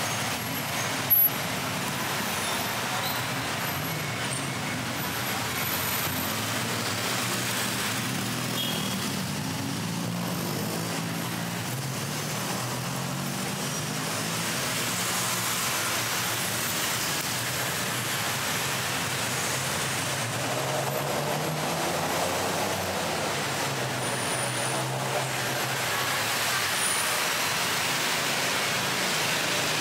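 Busy city road traffic: a steady mix of car, bus and truck engines running and passing, with engine hum rising and fading as vehicles go by. A brief sharp knock about a second in.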